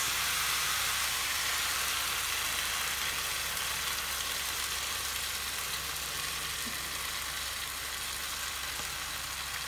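Chicken and vegetable stir-fry sizzling in a frying pan as oyster and soy sauce is poured in and stirred through. It is a steady hiss that slowly dies down, over a faint low hum.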